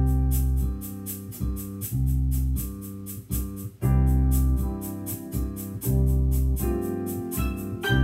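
Three digital pianos and a portable keyboard playing a Latin-style piano trio together: low sustained chords come in on the first beat with a melody above, over a steady ticking percussion beat of about four a second.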